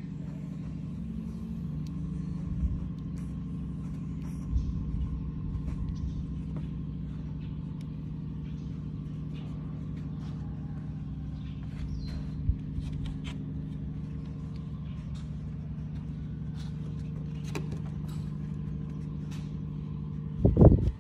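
A motor running with a steady low hum, with scattered faint clicks and a loud low thump just before the end.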